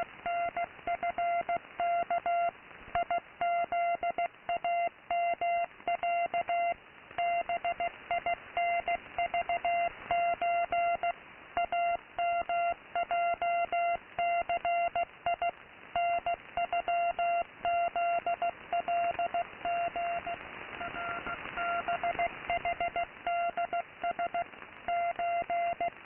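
Morse code from a shortwave station received in AM mode: a steady tone of about 700 Hz keyed on and off in dots and dashes, spelling out an English greeting, over receiver hiss. About 20 seconds in the keying pauses for a few seconds and the static swells, then the code resumes.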